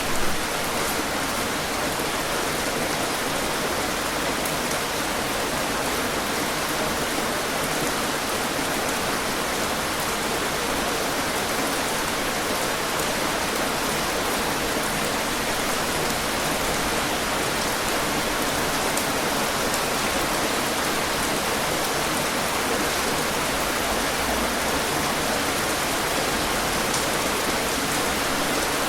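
Heavy rain falling steadily, a dense even hiss of drops striking surfaces with faint individual drop ticks.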